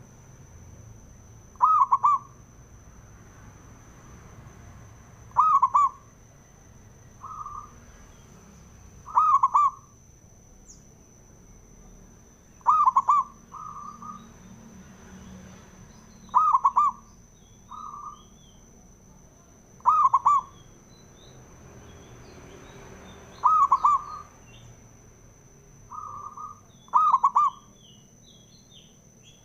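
Zebra dove (perkutut) cooing: eight short, loud, rapid multi-note coos evenly spaced about every three and a half seconds. Fainter answering coos fall between several of them. A thin steady high whine runs underneath.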